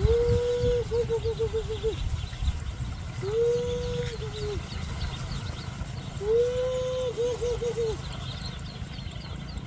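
A call repeating about every three seconds: a held note that breaks into a quick run of four or five short notes, over the high peeping of many young birds.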